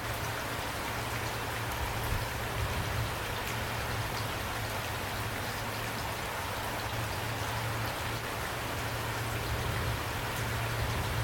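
Steady rain falling, with individual drops ticking against a surface and a low, steady rumble underneath.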